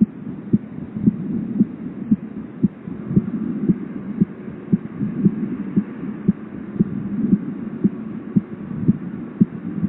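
Recorded human heartbeat played back, picked up by a smartphone headphone microphone used as a stethoscope: a steady hum with a thud about twice a second. It is a fast resting rate of about 110–115 beats a minute, which a friend with medical knowledge took as a sign of hypertension.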